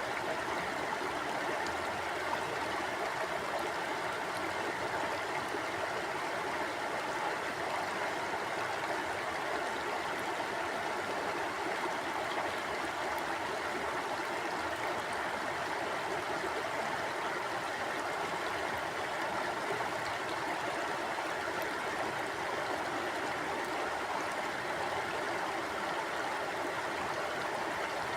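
Mountain stream flowing: a steady, even rush of water with a light gurgle.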